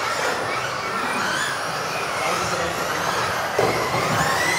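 A pack of electric RC off-road buggies racing: motors whining and shifting in pitch as the cars speed up and slow down, over a steady hiss of tyres on the track surface. About three and a half seconds in, one car's whine rises sharply as it accelerates.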